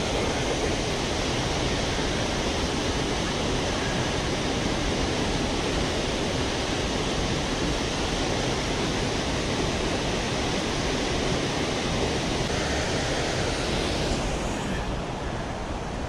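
Steady rushing of Multnomah Falls' falling water. The hiss thins out about fourteen seconds in.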